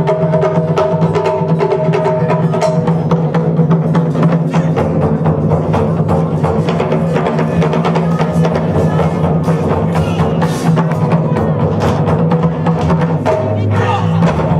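Live band music: Japanese taiko drums and a drum kit play a fast, dense beat over held keyboard and electric bass notes, in a funk-styled taiko piece.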